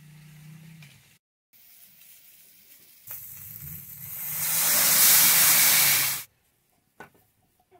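Spiced liquid poured into a hot pan of fried shol fish and potatoes sizzles loudly. The sizzle builds over about a second, holds, then cuts off suddenly.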